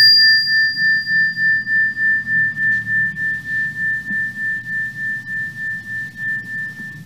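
A metal chime bar struck once with a mallet, ringing one clear high note that slowly fades. Its level pulses about three times a second, and a higher overtone dies away after a few seconds.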